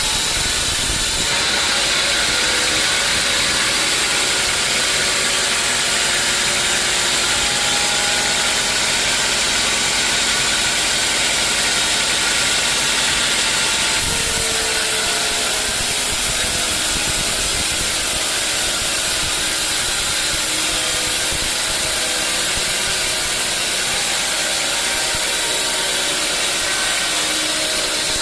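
Sawmill saw running and cutting through a teak log: a loud, steady machine noise. The sound changes abruptly about a second in and again about halfway through.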